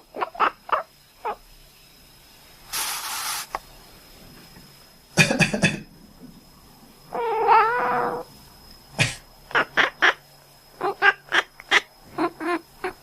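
A person coughs, sharply about five and nine seconds in, and a sleeping cat answers with short quack-like chirps in quick runs, several near the start and a longer string near the end. A longer wavering call comes around the middle.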